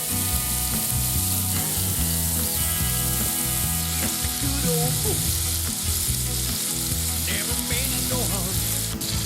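Meat sizzling as it cooks, a steady crackling hiss with low tones underneath.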